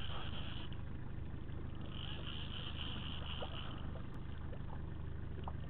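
A boat's motor running steadily with a low hum, and a high whine over it that fades about a second in and comes back about two seconds in.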